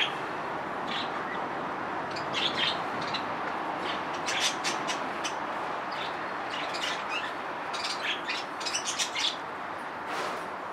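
Small birds chirping in short, scattered clusters of high chirps over steady background noise.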